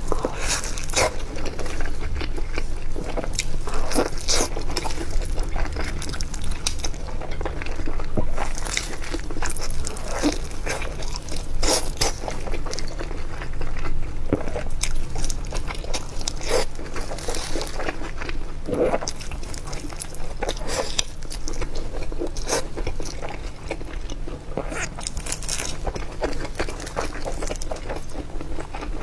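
Close-up eating sounds: a person taking irregular crunchy bites and chewing, of a pork-and-chive filled pie.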